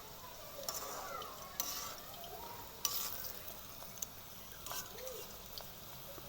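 Batter-coated potato chips frying in hot oil, a steady sizzle, with a spoon stirring them and clicking against the pan about five times.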